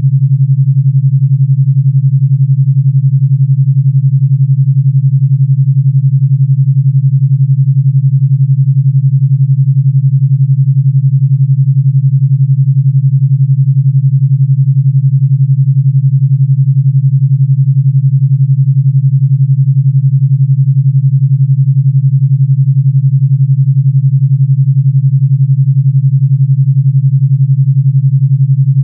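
Steady, loud pure sine tone at about 141 Hz, pulsing rapidly with an 11 Hz alpha-wave beat.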